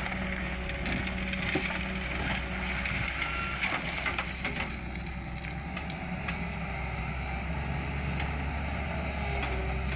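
Sany 210 hydraulic excavator's diesel engine running steadily under work, with scattered crunching and knocking of material being worked.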